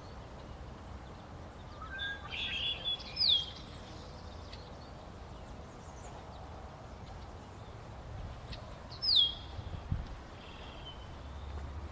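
Wild birds calling at a wetland pond: some brief chatter, then two loud, high calls that slide sharply down in pitch, about six seconds apart, over a steady low background rumble.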